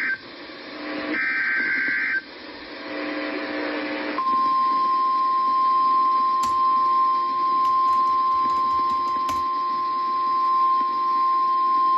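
Emergency Alert System SAME data bursts, short harsh two-pitch warbles about a second apart. About four seconds in, the NOAA Weather Radio warning alarm starts: one loud, steady, single-pitch tone that signals an urgent warning is about to be read.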